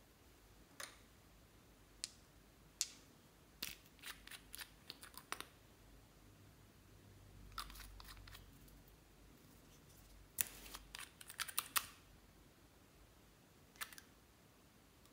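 Sharp clicks and pops of clear slime being handled and mixed, scattered singly and in two quick bursts of several clicks about four seconds and ten seconds in.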